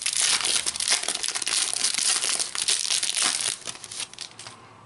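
Foil wrapper of a Topps Mega Match Attax trading-card pack being torn open and crinkled as the cards are pulled out. The crackling fades out about three and a half seconds in.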